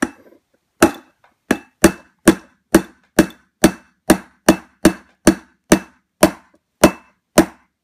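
Claw hammer tapping a roll pin into the hammer pivot of a Jericho 941 (Baby Desert Eagle) pistol frame: about fifteen sharp, even taps, roughly two a second, driving the pin all the way through.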